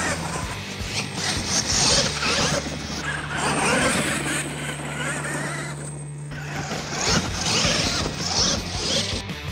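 Radio-controlled monster trucks driving hard across loose dirt, their drivetrains whining and tyres spraying dirt in repeated hissing bursts, under background music.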